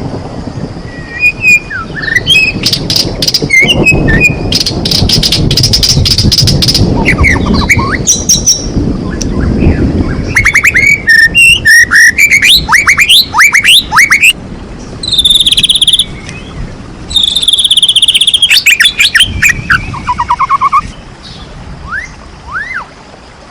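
White-rumped shama (murai batu) singing loudly: a fast, varied song of rapid clicking notes, sweeping whistles and runs of repeated rising notes.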